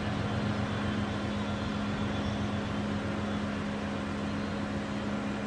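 A steady low mechanical hum over a rough rumble, fading only slightly.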